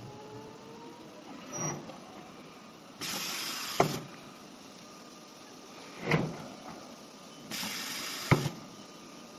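Pneumatic machinery on a CNC nesting router line cycling. A hiss of air about a second long ends in a sharp clack, twice, about four and a half seconds apart, with softer knocks in between.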